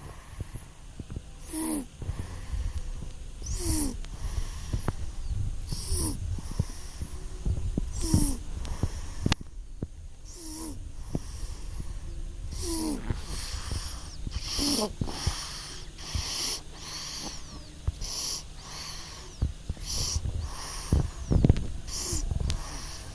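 A three-month-old baby snoring in its sleep: a wheezy breath about every two seconds, each with a short squeak that drops in pitch.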